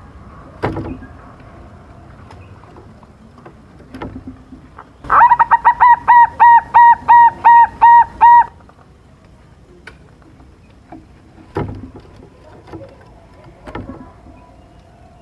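Zebra dove (silver perkutut) giving a fast, loud series of about a dozen evenly spaced cooing notes, starting about five seconds in and lasting some three seconds. A few separate sharp knocks come before and after the series.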